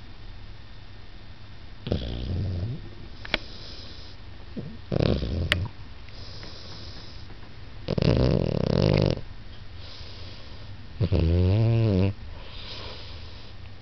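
Hedgehog snoring: four loud snoring breaths about three seconds apart, some with a buzzing pitched tone, and softer hissing breaths in between.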